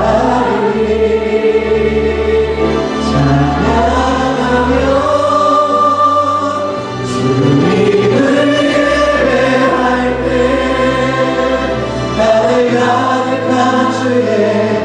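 A church congregation singing a Korean praise song together, several voices sustaining long notes over sustained instrumental accompaniment whose low notes change every second or so.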